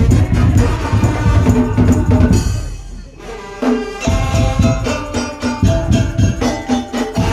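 Madurese ul-daul (tong-tong) percussion ensemble playing: dense, loud drumming with a melody line over it. The drums drop out for about a second and a half near the middle while the melody goes on, then come back in.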